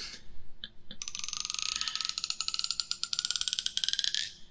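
Comb teeth flicked by fingers right at the microphone: a couple of single clicks, then from about a second in a fast run of clicks that blends into a buzzing rasp, rising slowly in pitch and stopping near the end.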